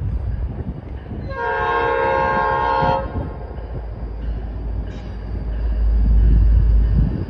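An approaching Tri-Rail commuter train sounds one horn blast of several tones, lasting about a second and a half. A low rumble under it grows louder near the end as the train draws nearer.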